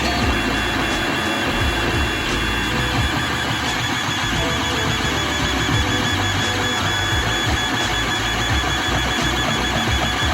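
3D printer running, its stepper motors whirring and whining in shifting tones as the print head moves, with background music.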